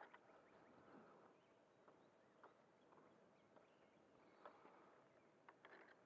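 Near silence: faint outdoor background with a few soft, irregular ticks.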